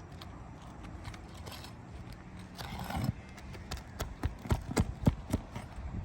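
Hammer striking a roofing snake worked under an asphalt shingle to pull its nails: a scraping rustle a little before halfway, then a run of sharp, irregular knocks.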